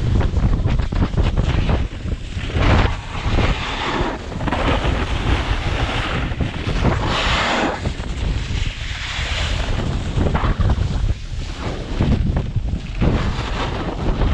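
Wind buffeting the microphone: a heavy low rumble with gusts of hiss that swell and fade every second or two.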